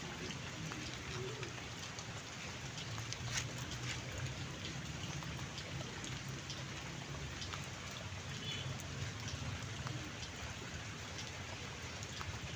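Steady rain falling, a constant hiss speckled with the small taps of individual drops; one sharper drop hits about three seconds in.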